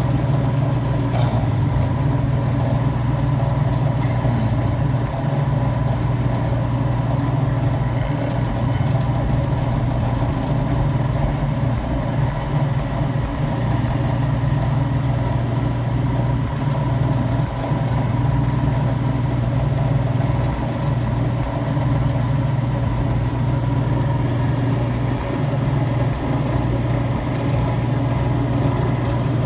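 Robinair 6.5 CFM vacuum pump running with a steady, unchanging hum while it pulls a refrigeration system down into deep vacuum.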